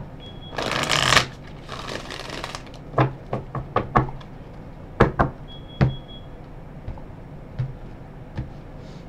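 A deck of tarot cards being shuffled, with two rustling riffles in the first few seconds. Then comes a scattering of sharp taps and snaps as cards are knocked together and laid down on the table.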